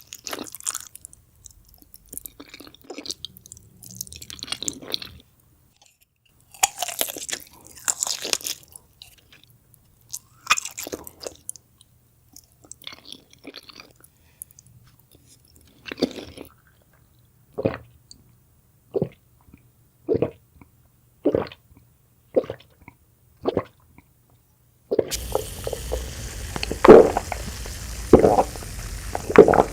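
Close-miked eating sounds: crisp, crunchy bites and chewing, then a run of evenly spaced wet chewing sounds about once a second. About 25 s in it cuts to louder chewing over a steady background hiss.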